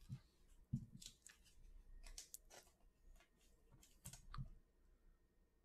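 Faint clicks and brief rustles of glossy trading cards being handled, slid and shuffled between the fingers, the loudest near the start and about four seconds in.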